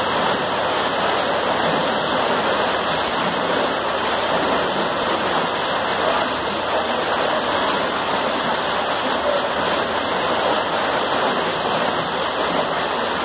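Water gushing through a canal lock gate into the lock chamber, as the lock fills with the paddles open. The churning white water makes a loud, steady rush.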